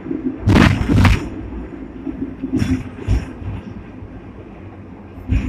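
Sixth-generation Hong Kong double-decker tram running on street track, heard from inside at the front: a steady low rumble and hum of the running gear, broken by loud clunks and rattles. Two clunks come close together about half a second in, two lighter ones come around three seconds, and another comes near the end.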